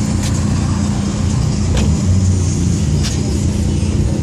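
Car engine running at idle nearby, a steady low drone.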